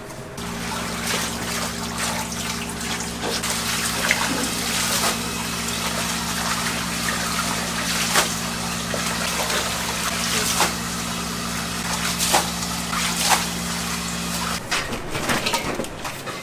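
Running water pouring over cut napa cabbage in a plastic basket as gloved hands rinse and turn the leaves, with frequent sharp clicks and knocks from the handling. A steady low hum runs beneath the water and stops about two seconds before the end.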